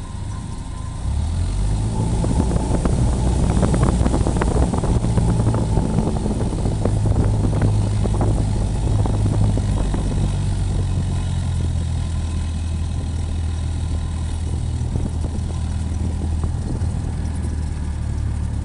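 Cessna 172's piston engine and propeller running steadily, picking up power about a second in and holding there.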